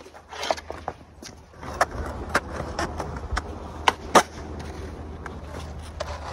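Skateboard wheels rolling over rough concrete with a steady rumble, broken by several sharp clacks, the loudest about four seconds in.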